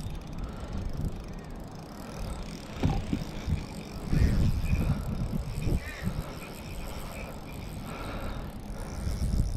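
Spinning reel being cranked, a soft gear whir with small clicks, under wind buffeting the microphone in irregular gusts, the gusts loudest about three to six seconds in.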